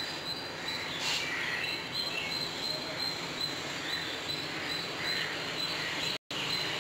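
Outdoor yard ambience: a steady hiss under a high insect chirp pulsing a few times a second, with a few faint bird calls. The sound cuts out for an instant near the end.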